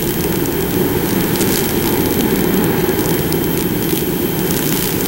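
Steady rushing drone of a Mini Skywalker RC plane in flight: its electric motor and propeller with wind rush, mostly low in pitch, with a faint high steady whine and hiss over it.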